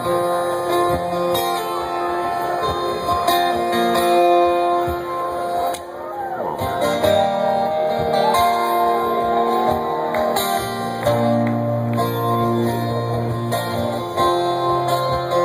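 Live guitar band music: sustained chords with a lead line whose notes bend and glide in pitch.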